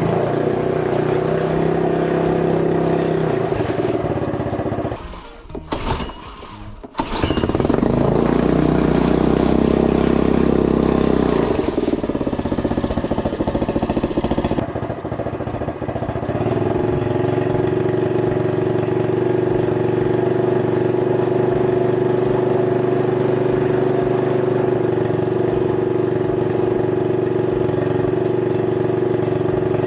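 Honda BF2DH 2 hp single-cylinder, air-cooled four-stroke outboard motor running on its first start. It breaks off briefly about five seconds in, runs at higher revs for a few seconds, then drops to a steady idle from about halfway through.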